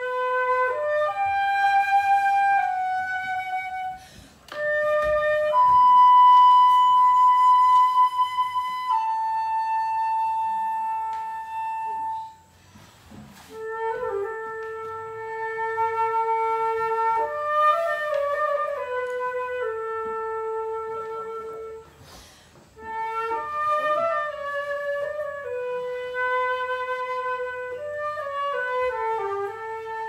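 A solo wooden flute plays a slow melody of long held notes with some quicker runs. It stops briefly three times to take breath.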